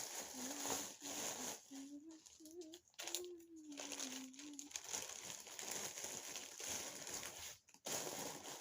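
Packaging crinkling and rustling as baby clothes are handled and put back. Through the first half a person's voice holds a low, wavering tone, without words.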